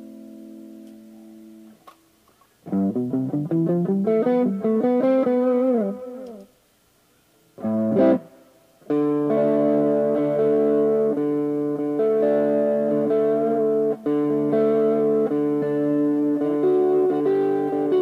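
Joodee JLP-55, a 1970s Japanese-made Les Paul–style electric guitar, being played: a chord rings out and fades, then a run of rising notes with string bends, a short chord stab about eight seconds in, and ringing chords through the rest.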